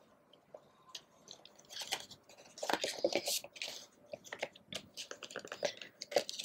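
Stiff cardstock photo postcards being handled: light taps and rustling as the stack is shuffled and set down against the paperboard box, with a louder stretch of scraping and shuffling about three seconds in.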